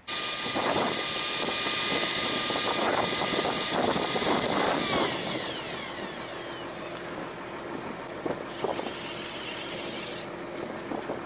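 Electric fishing reel winding line in with a steady motor whine, which slows with a falling pitch and stops about five seconds in. A short high beep follows about eight seconds in over a quieter steady hum.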